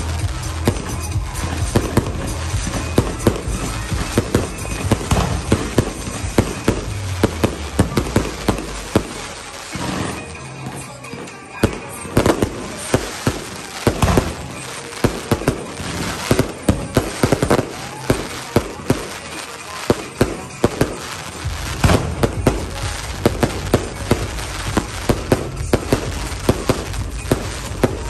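Aerial fireworks firing in quick succession: a dense, continuous barrage of sharp bangs and crackles, easing briefly about ten seconds in before coming thick again.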